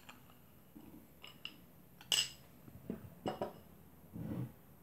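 A spoon clinking and tapping against cups and dishes while mashed berries are spooned out: a few light taps, the loudest clink about two seconds in, and a duller knock near the end.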